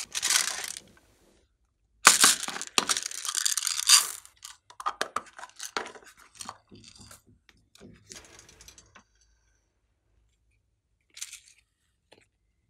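Plastic slime containers being handled and opened by hand: scraping, crinkling plastic noise, loudest in a run of about two seconds early on, then scattered clicks and taps, and one short rattle near the end.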